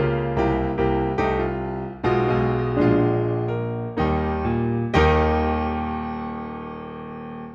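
Ragtime piano background music, ending on a final chord about five seconds in that rings on and fades away.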